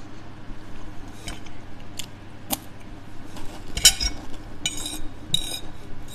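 Knife and fork clinking and scraping on a plate: a few sharp taps, the loudest about four seconds in, then three short scrapes near the end.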